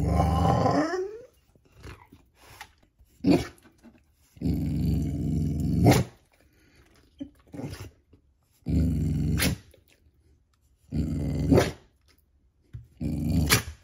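Pit bull making his Chewbacca-like growling vocalisation in about six bouts of a second or less, with short pauses between, the first ending on a rising note. It is his 'let's get going' sound, a demand to be taken out.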